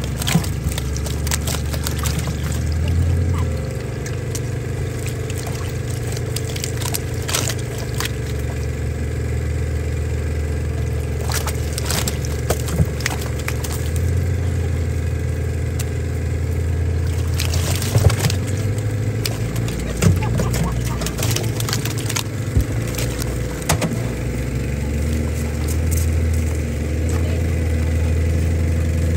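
A motor running steadily with a low hum, with scattered sharp clicks and knocks over it, the loudest about two-thirds of the way through.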